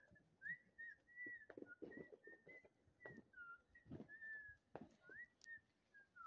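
Faint whistle-like notes in an unbroken string, each gliding up or down, with a few soft thumps scattered through.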